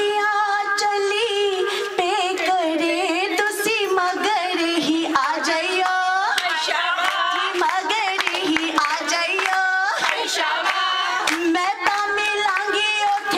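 A woman singing a Punjabi folk song (geet) with long, held, ornamented notes, accompanied by rhythmic hand-clapping.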